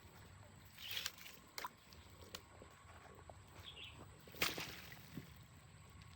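Shallow river water sloshing and splashing in a few short bursts, the loudest about four and a half seconds in, over a low steady rumble.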